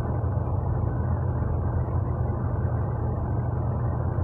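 A steady low rumble, like a motor running in the background, with no distinct individual sounds.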